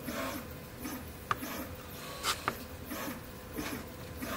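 Small plastic one-handed bar clamp being handled and closed onto two glued pieces: light rustling and rubbing with a few sharp plastic clicks, one about a second in and two close together a little after two seconds.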